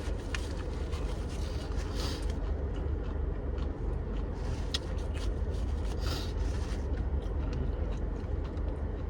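Crunching and chewing of hard taco shells filled with crunchy shrimp tempura sushi, a scatter of sharp crackles over a steady low rumble.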